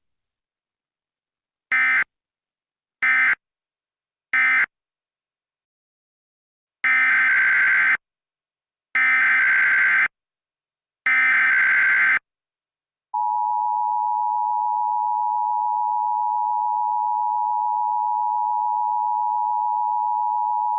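Emergency Alert System tones. First come three short bursts of buzzy digital data tone, the end-of-message code. After a pause come three longer bursts of the same tone, the SAME header that starts the next alert. About thirteen seconds in, the two-tone attention signal begins: a steady, harsh dual tone held for about eight seconds.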